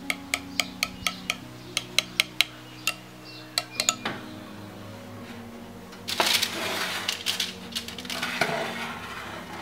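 Metal spoon clinking against a glass bowl while stirring a thick sour-cream sauce: a quick run of sharp clinks for about the first four seconds. Later come two longer rushes of scraping noise, about six seconds in and again near the end.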